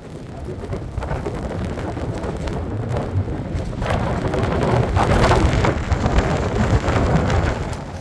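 Blizzard wind blowing hard and buffeting the microphone. About halfway through a stronger gust of wind-driven snow swells into a louder hiss, then eases off near the end.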